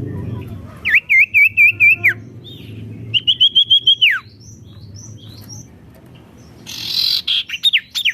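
Sirtu songbird singing loudly: a quick run of about five looping whistled notes, then a run of about six that ends in a falling slur, and near the end a harsh burst followed by a string of sharp downward-sliding notes.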